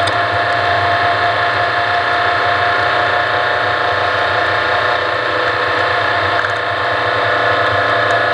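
Off-road race vehicle's engine running at steady high revs under a rushing noise, the engine note holding at an even pitch.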